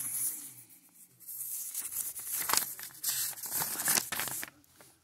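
Paper rustling and crinkling as a folded printed leaflet is opened out by hand: a short rustle at the start, then a longer run of crinkling from about two seconds in until shortly before the end.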